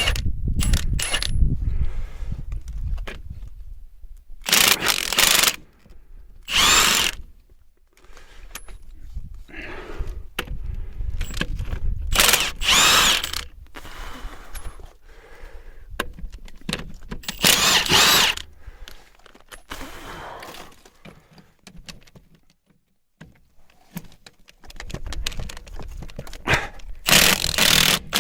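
Milwaukee impact wrench hammering in several short bursts of about a second each, with quieter clinks and handling noise between them.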